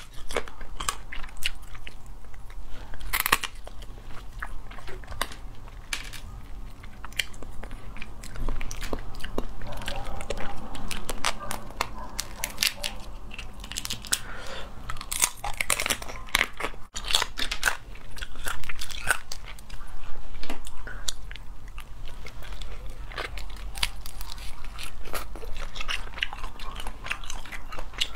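Close-up eating of spicy crayfish: shells cracking and snapping irregularly as they are peeled by hand, mixed with biting and chewing.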